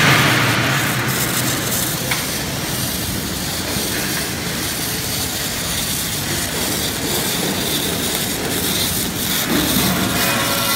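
Overlay welding machine laying chromium carbide cladding onto steel wear plate: a steady hiss from the welding arcs, with a few steady machine tones joining about ten seconds in.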